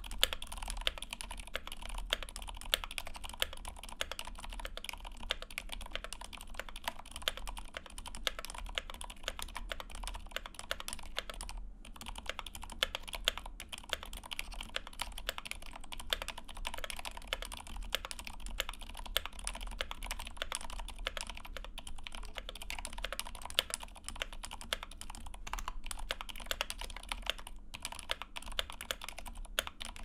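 Fast, continuous typing on a Think 6.5 mechanical keyboard fitted with Zilents V2 silent tactile switches on 78 g springs and GMK Handarbeit+ keycaps: a dense run of keystrokes with a brief pause about twelve seconds in.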